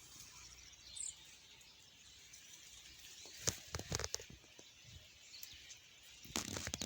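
Faint outdoor rural ambience with a soft steady hiss, broken by a few short crackles about three and a half seconds in and again near the end.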